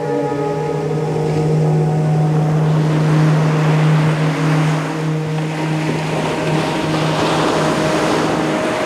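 A man's voice chanting a single long, steady "Om", held for about eight seconds, over ocean surf washing in and swelling through the middle, with a soft flute note sustained in the background.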